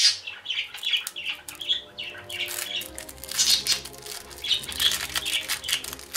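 Crinkling and rustling of a sticker pack's wrapping being torn open by hand: a dense run of quick crackles.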